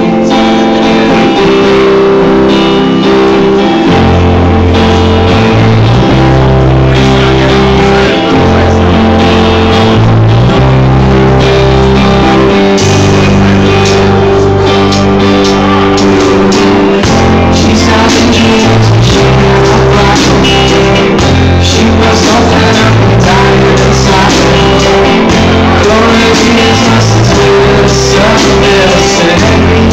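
Live rock band playing a song: electric guitars, bass guitar and drums, with a man singing.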